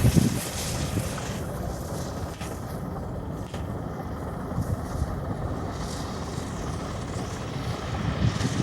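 American-built 2-8-0 steam locomotive working, a steady rumble with heavy low exhaust beats at the start and again near the end.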